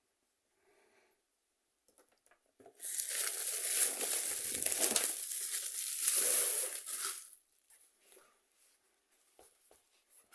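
Plastic packaging wrap being handled and crumpled: a dense crinkling that starts about three seconds in and lasts about four and a half seconds, then a few faint rustles.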